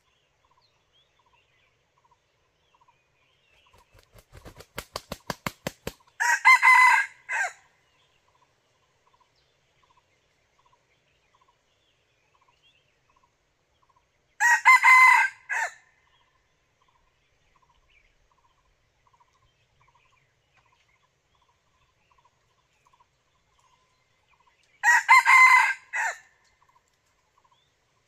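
Red junglefowl cockerel crowing three times, each a short crow of about a second with a clipped final note, spaced roughly ten seconds apart. Before the first crow comes a quick run of about ten claps growing louder, the bird's wingbeats before crowing.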